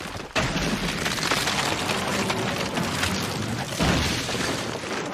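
Anime sound effect of a Wood Style jutsu taking shape: a dense, continuous rush of cracking and rumbling as the wooden structure bursts up. It starts suddenly about half a second in and swells again with a deeper surge about four seconds in.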